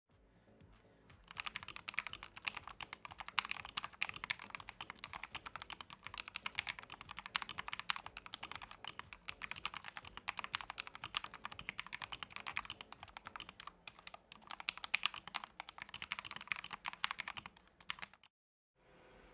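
Fast, continuous typing on a mechanical keyboard with lubed switches, a dense stream of key clacks. It stops abruptly about 18 seconds in.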